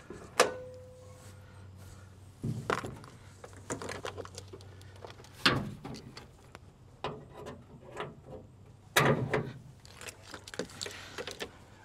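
Subaru Crosstrek hood being unlatched, raised and propped open: a sharp metallic click with a brief ringing tone about half a second in, then scattered knocks and clanks of the hood and its prop rod.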